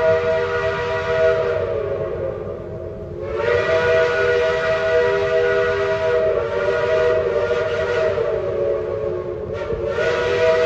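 Steam locomotive's chime whistle sounding a chord of several steady tones, loud, in long blasts. One blast ends about two seconds in, a long blast of about six seconds follows, and another begins near the end.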